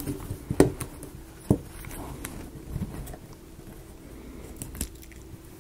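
Light clicks and taps of small wooden model-kit pieces being handled and fitted together, with two sharper knocks about half a second and a second and a half in.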